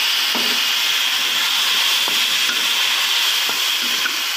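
Hot oil sizzling steadily in a wok as spice paste and small whole fruits fry, with a few light knocks of a wooden spatula against the pan.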